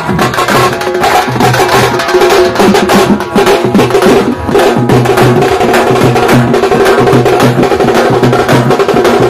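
A dappu drum troupe playing a fast, loud rhythm of stick strokes on their drums, with a low pitched note pulsing along in time underneath.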